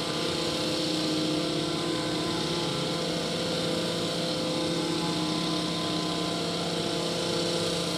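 Stihl two-stroke chainsaw engines running steadily at high revs, a drone that holds one pitch.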